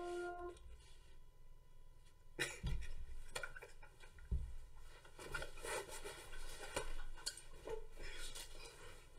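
A held tone cuts off about half a second in; then a person moves about, handling fabric, with rustling, scattered clicks and knocks, and two low thumps a little over two and a half and four seconds in.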